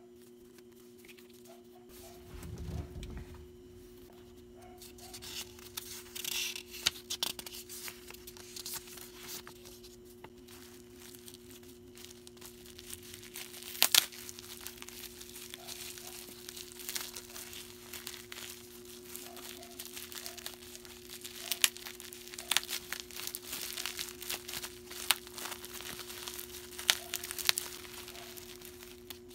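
Packaging being handled for an order: plastic and paper crinkling and tearing, with scattered sharp clicks and a low thump about two seconds in, over a steady low hum.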